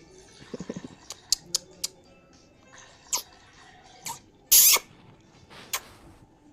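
Parrot making short clicks and squeaky chirps, with one loud, harsh squawk about four and a half seconds in, over faint background music.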